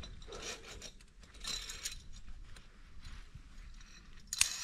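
Rustling and scattered metallic clicking and jangling of gear being handled, with a sharp clack near the end.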